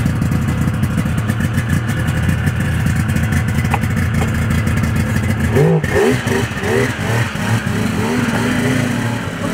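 A 1994 Polaris Indy XLT 600 snowmobile's three-cylinder two-stroke engine runs at a fast idle. About six seconds in it is revved, its pitch rising and falling, as the track spins and throws snow.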